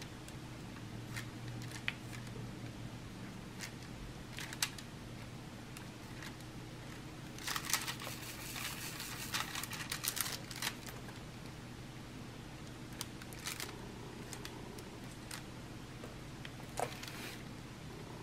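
Clear plastic cover film of a diamond painting canvas crinkling for about three seconds midway, among scattered light clicks of a drill pen setting resin drills, over a low steady hum.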